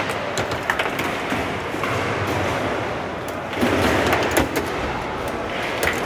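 Foosball table in play: sharp clacks of the ball striking the plastic players and the table, with the rods sliding in their bearings, over a steady background noise. The noise is loudest a little past halfway.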